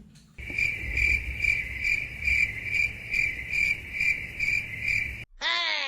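Cricket chirping sound effect, a steady high chirp pulsing about two to three times a second. It cuts off about five seconds in, and a short sound effect falling in pitch follows.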